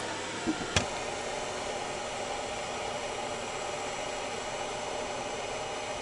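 A blower runs with a steady whooshing noise and a faint steady hum, with one sharp click near the start.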